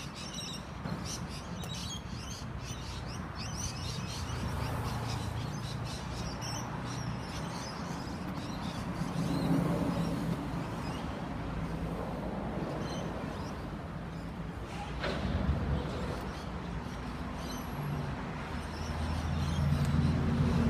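Outdoor background with birds chirping, rapidly at first, over a steady low rumble. A single sharp knock comes about 15 seconds in.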